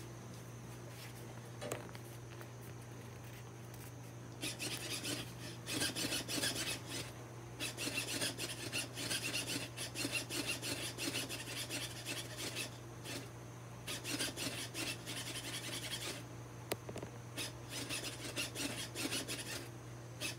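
Lunging witch Halloween animatronic moving, giving a rasping, rubbing mechanical noise in bursts over a steady low hum. The noise starts about four seconds in, runs for several seconds, then comes back in two shorter bouts. The prop's built-in sound effects are silent because they are not working.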